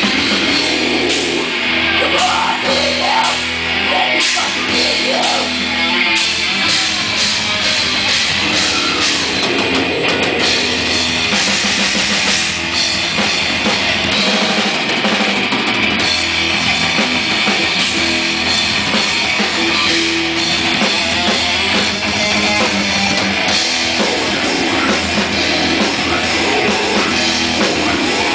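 Death metal band playing live: heavily distorted guitars and bass over fast drumming with constant cymbals, loud and unbroken.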